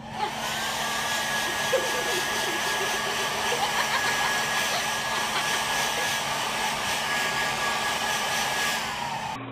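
An electric blower running steadily: an even rushing noise with a thin high whine, starting just after the beginning and cutting off just before the end.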